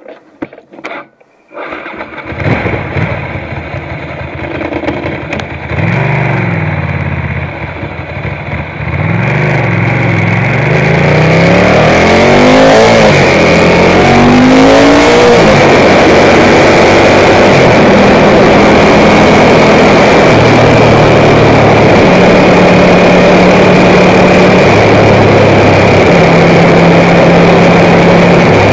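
Ducati M900 Monster's air-cooled L-twin motorcycle engine: after a few clicks it starts about two seconds in, and its revs climb and fall repeatedly as the bike pulls away and shifts up. From about ten seconds on, heavy wind rush on the helmet-less camera mic at road speed covers a steady engine drone that steps in pitch with the gear changes.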